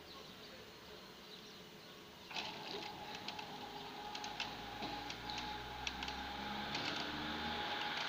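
A car approaching and pulling up: its sound comes in suddenly about two seconds in and grows steadily louder, with scattered clicks.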